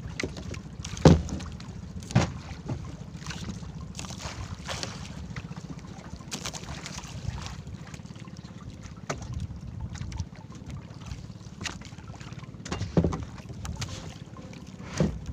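Small outrigger fishing boat drifting at sea: wind buffeting the microphone and water sloshing against the hull, with a few sharp knocks on the boat, twice near the start and twice near the end.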